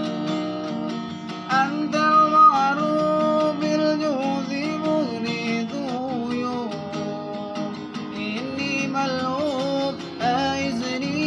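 A man singing sholawat, an Islamic devotional song, in long held notes with ornamented turns, accompanying himself on a strummed acoustic guitar.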